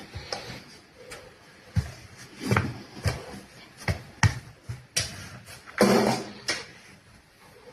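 A string of irregular knocks and rustling handling noises, with a louder scraping rustle about six seconds in.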